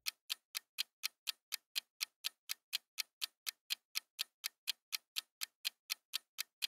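Clock-ticking sound effect of a quiz countdown timer: short, even ticks at about four a second.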